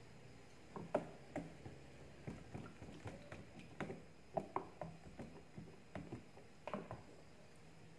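A small wire whisk beating a mayonnaise and all-purpose cream dressing in a plastic tub, its wires clicking and knocking against the tub in an irregular run of light taps from about a second in until near the end.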